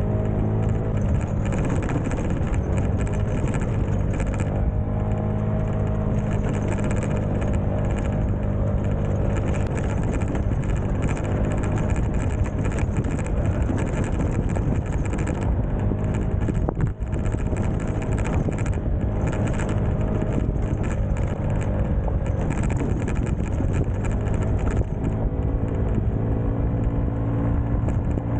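Honda Ruckus scooter engine running steadily while riding a dirt road, its note rising and falling a little with the throttle. Frequent short rattles from the bike going over rough ground.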